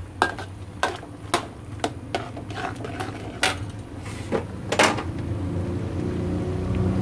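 A spatula knocking and scraping against a wok while stirring crumbled tofu and meatballs, with sharp knocks about twice a second. After about five seconds the knocks stop and a steady low rumble builds.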